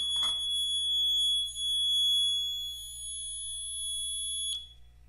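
Magneto synchronizer giving a steady high-pitched beep, signalling that the contact-breaker points in the Vincent's magneto have just opened at the chosen timing point. The beep cuts off with a click about four and a half seconds in.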